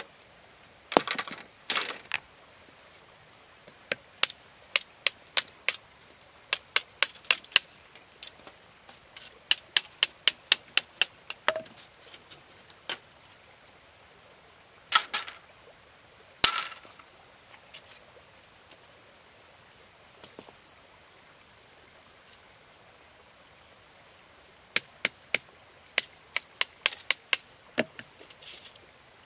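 A knife or machete striking bamboo poles and splitting them into strips. Runs of sharp taps and cracks come in quick series, with a few louder splitting cracks near the start and about halfway through.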